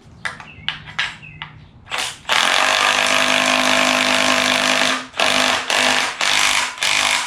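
Handheld power tool running, a few light clicks and knocks first, then one long burst of nearly three seconds and three shorter bursts. It is used in an attempt to save something on the engine being reassembled, an attempt that fails.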